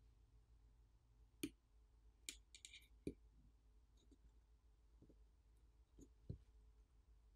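Faint, scattered clicks and light taps of small metal repair tools and tiny screws against a Google Pixel 9 smartphone being taken apart, with a quick rattle of tiny clicks about two and a half seconds in.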